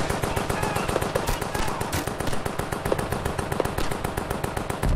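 Rapid, continuous World War I machine-gun and rifle fire, many shots a second. A deep boom comes in right at the end.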